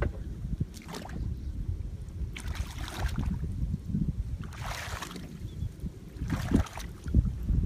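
Legs wading through shallow muddy water, about four sloshing splashes, one for each step, over a low wind rumble on the microphone.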